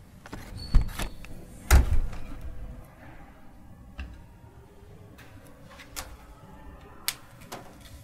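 A door being shut: a brief squeak, then a solid thud just before two seconds in. A few lighter, sharp clicks and taps follow.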